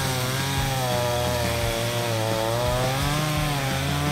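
Chainsaw running hard while cutting up fallen trees, its engine pitch dipping and recovering several times as it bites into the wood.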